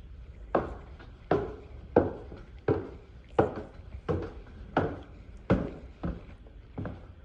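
Footsteps on newly installed laminate flooring: about ten even, hard steps at a steady walking pace.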